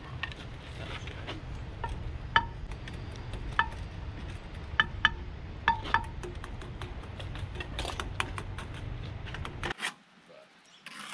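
Irregular sharp metallic clinks with a short ring, from steel tools and rebar knocking on the concrete-block wall during block-laying, over a steady low rumble. The rumble stops suddenly near the end.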